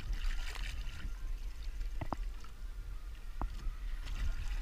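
Wind rumbling on the microphone over water slapping against the boat, with two brief clicks about two and three and a half seconds in.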